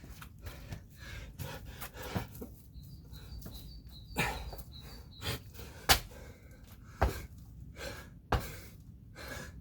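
Thumps and breaths of a person doing burpees and kettlebell jump squats, with the sharpest knocks about a second apart in the second half. A bird chirps a quick run of high repeated notes in the middle.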